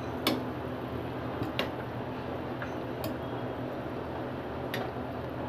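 Sugar syrup boiling under kalo jam sweets in a metal saucepan on a gas stove, a steady bubbling hiss, with a metal spoon clicking against the pan a few times as the sweets are stirred.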